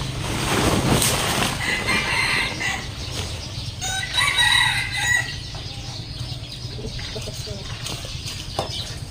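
A rooster crows, a drawn-out call of a little over a second about four seconds in, after a shorter call near two seconds. At the start a plastic tarp rustles as it is pulled over.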